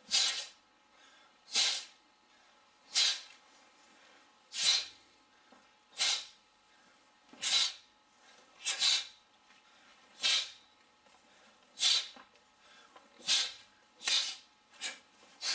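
Sharp, hissing breath exhalations from two taekwon-do practitioners performing a pattern in unison, one short burst with each punch or block, about every one and a half seconds.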